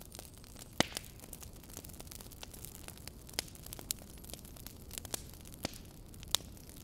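Steady hiss and low hum with sharp crackles and pops at irregular intervals.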